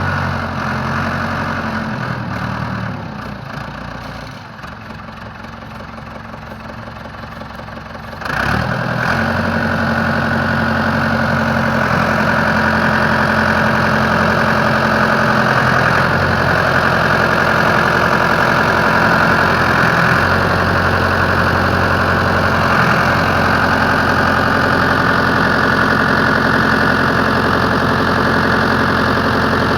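Ford 655A backhoe's four-cylinder diesel engine running: it drops back to a lower, quieter speed about two seconds in, then revs up sharply about eight seconds in and holds steady at the higher speed.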